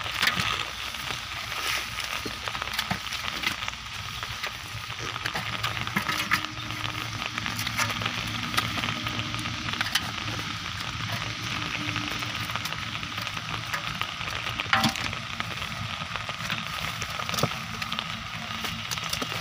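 A wet nylon fishing net being handled and pulled, with live fish flapping and splashing in the net and in aluminium pots of water: a steady crackling patter of small wet clicks and rustles.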